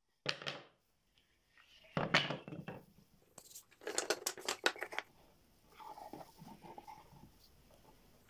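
Wooden slats and small boards handled on a wooden workbench: knocking and scraping of wood on wood, with a quick run of light clacks about four seconds in and softer rubbing after.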